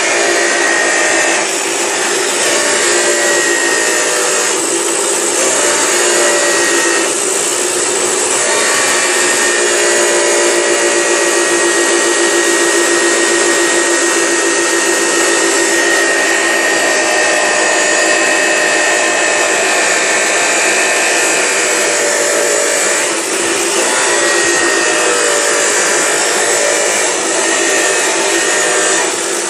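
A loud, continuous rasping noise like a tool at work, with a few steady tones running through it.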